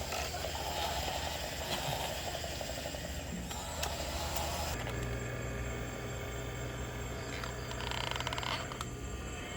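Small electric motors and gearboxes of RC model trucks whirring. The sound changes abruptly about five seconds in to a steady low hum, and a short buzzing whir comes near the end.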